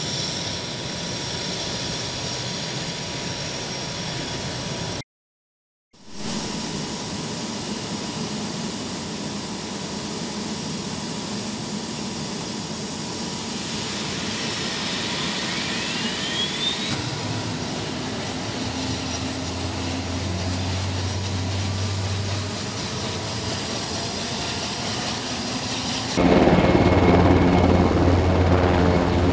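KUH-1 Surion helicopter's twin turboshaft engines running with a steady high whine, broken briefly about five seconds in. Midway a rising whine sweeps upward. Near the end the sound turns louder and deeper as the rotor takes load and the helicopter lifts off.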